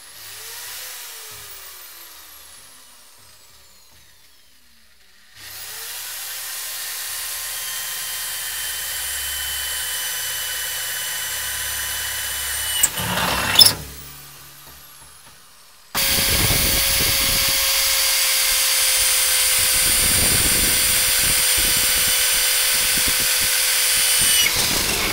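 Electric drill boring holes through the rusty steel wall of an oil drum. It runs steadily in two stretches: a quieter one in the first half, ended by a few sharp clicks, and a louder one that starts abruptly about two-thirds of the way in and stops shortly before the end.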